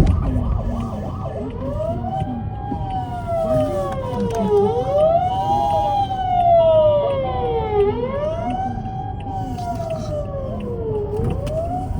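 Japanese emergency vehicle sirens: a wailing siren that rises and falls slowly, about one cycle every three seconds, alongside a two-tone hi-lo siren, over low road rumble.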